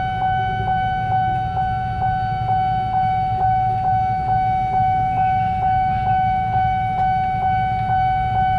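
A railway level-crossing warning alarm sounding: one steady high electronic tone with a regular tick about twice a second. A low steady rumble runs underneath.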